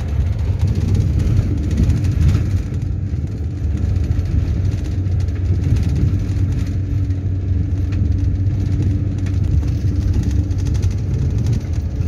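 Car driving on an unpaved dirt road, heard from inside the cabin: a steady low rumble of engine and tyres on the rough surface.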